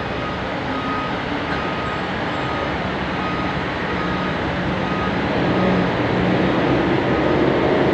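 Diesel cargo truck engine running as it drives slowly along a ferry's enclosed steel vehicle deck, growing louder near the end as it comes closer, with short high electronic beeps repeating throughout.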